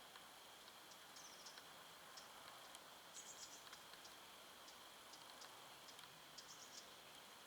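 Near silence: a faint hiss with scattered high ticks and a few short, high chirping trills.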